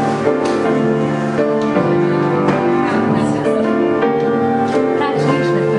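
Piano being played: a melody over held chords.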